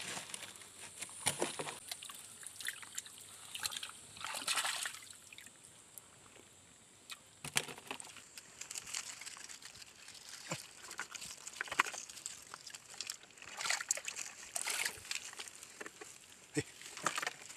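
Hands groping in shallow muddy stream water, sloshing and splashing in short irregular bursts while feeling under stones for crabs.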